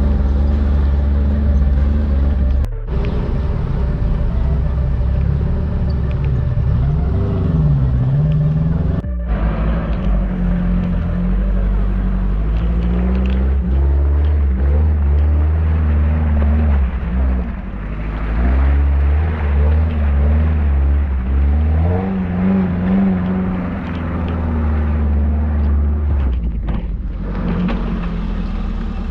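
Suzuki Katana 4x4's engine running and being revved on an off-road course, its pitch rising and falling several times.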